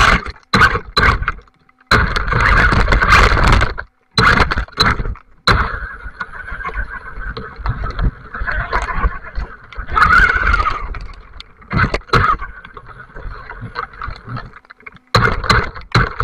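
Electric RC buggy driving over wet gravel and through puddles, heard from a camera on the car. The motor and gears whine in surges as the throttle comes on and off, mixed with tyres scraping on gravel and splashing. The sound drops out briefly twice.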